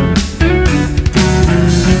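Experimental progressive metal recording with jazz leanings: guitar over bass and drums in a rhythmic riff.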